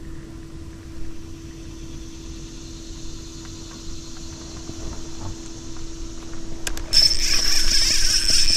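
Steady low hum of a small electric motor. Near the end it is joined by a much louder, sudden hissing buzz after a few sharp clicks.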